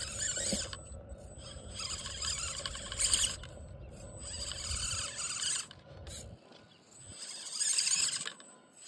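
RC rock crawler's small electric motor and geared drivetrain whining at a high pitch in several on-off throttle stretches, with short pauses between them, as the truck creeps up a steep rock face. A low wind rumble on the microphone drops away about six seconds in.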